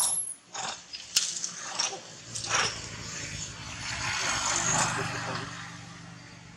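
An infant long-tailed macaque's high squeal breaks off at the very start, followed by a few short rustles or clicks. Around the middle a noisy sound with a low steady hum swells up and fades away.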